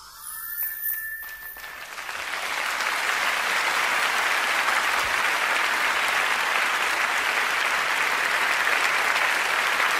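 A last rising note from the band ends about a second and a half in; then a concert audience applauds, swelling up and holding steady.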